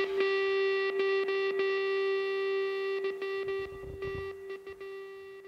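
Background rock music ending on one held distorted electric guitar note that rings on and slowly fades out.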